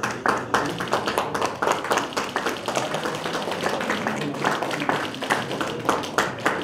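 Audience applauding: many hands clapping irregularly and steadily.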